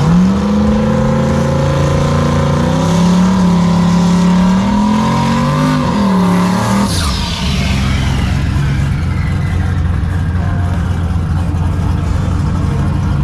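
Drag-racing car engine at full throttle for about seven seconds, its pitch wavering, then dropping suddenly as the driver lifts. A high whine falls away after that, over a steady rumble.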